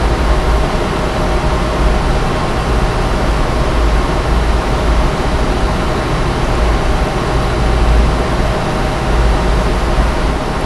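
Steady, loud background noise with a deep low rumble and an even hiss, like a running fan or air-handling unit, with no distinct clicks or knocks.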